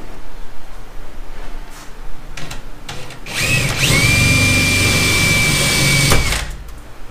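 Cordless drill boring an eighth-inch pilot hole through the car's trunk-lid sheet metal. After a few light clicks the drill starts about three seconds in, its whine rising briefly and then holding steady for about three seconds before it stops.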